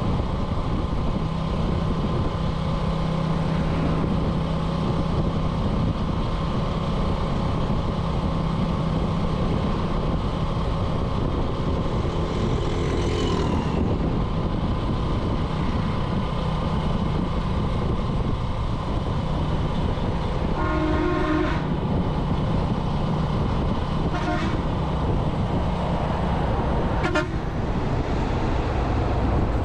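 Small motorbike engine running steadily on the move, with road and wind noise. A horn sounds for about a second roughly two-thirds of the way through, and a brief toot follows near the end.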